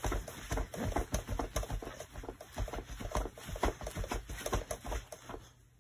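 A baby's feet kicking rapidly against a bouncer seat: a quick, irregular patter of soft thumps, several a second, that stops shortly before the end.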